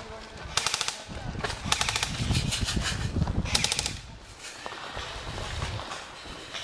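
Airsoft guns firing in short fully automatic bursts, each a rapid run of sharp clicks. Four bursts come close together in the first four seconds, and after that it goes quieter.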